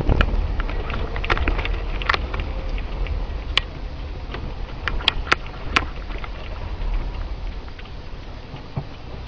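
Car driving on a wet road, heard from inside the cabin: a steady low rumble with a hiss of tyres on wet tarmac and scattered sharp clicks.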